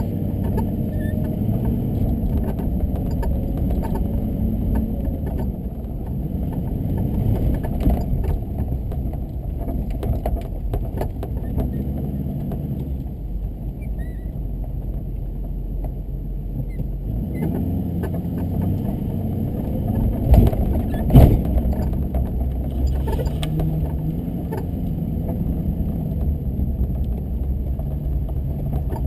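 Car driving on snow-covered streets: a steady low engine and road rumble. A couple of sharp thumps come about twenty seconds in.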